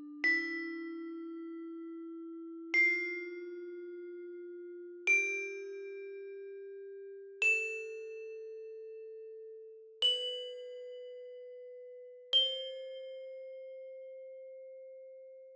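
A tuned metallophone, struck one note at a time, climbs a rising scale: six ringing notes about two and a half seconds apart, each a step higher than the last and each left to ring out.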